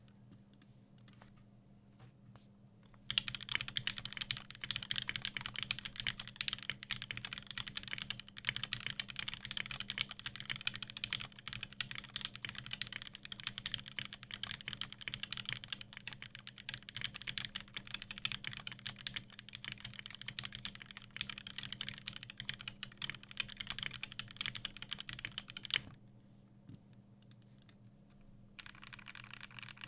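Rapid continuous typing on a custom 60% mechanical keyboard: lubed and filmed Durock L2 switches on a carbon fiber plate in an anodized aluminium case, with pudding keycaps. After a few faint taps, the typing starts in earnest about three seconds in and stops about four seconds before the end, over a faint steady low hum.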